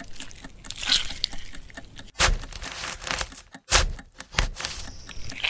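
A run of sharp cracks and crackles, with three heavy thuds in the middle.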